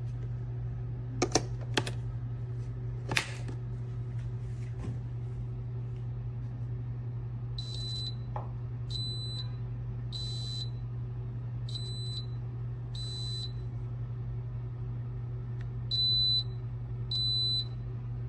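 TWOMEOW single-serve K-Cup coffee maker beeping: seven short electronic beeps at one high pitch, spaced about a second or so apart, with the last two louder. Underneath is a steady low hum, and there are a few sharp clicks in the first few seconds.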